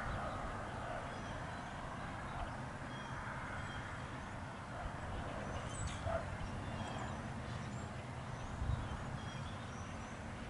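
Outdoor ambience with no train yet: a steady low rumble, most likely wind on the microphone, and faint, scattered bird chirps.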